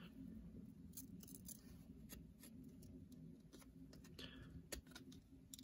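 Faint clicks and light rubbing of glossy trading cards being peeled apart by hand; the cards are stuck together.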